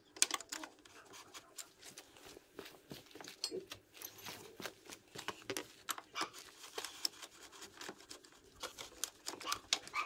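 Irregular clicks, taps and light scraping of small hard objects being handled, with some rustling.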